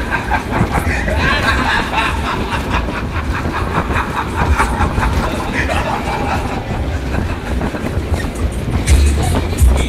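Matterhorn-style fairground ride running at full speed, heard from a rider's car: the cars rumble around the undulating track with a fast, even clatter over a heavy low rumble.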